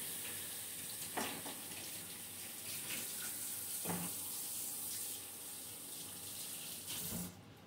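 Kitchen sink faucet running while hands are washed under it, with a few faint knocks against the sink. The water is shut off abruptly near the end.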